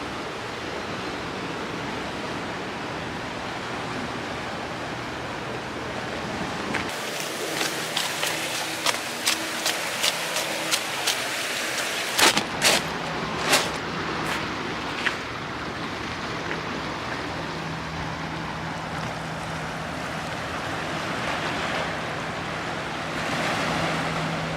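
Steady rush of ocean surf. A cluster of sharp clicks and taps comes in the middle.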